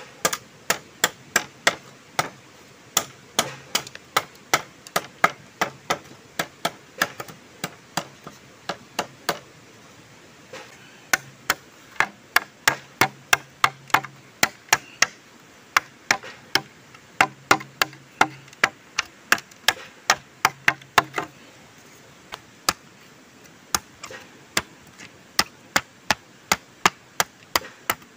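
Machete blade chopping into green bamboo over and over, knocking out the node walls inside a split culm: sharp chops about two or three a second, with a short pause twice.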